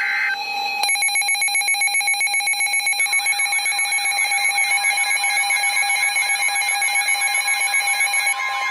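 Weather radio's electronic alert alarm sounding for a severe thunderstorm warning: a loud, rapid pulsing beep. About three seconds in, a warbling tone joins it, and right at the end a steady tone begins.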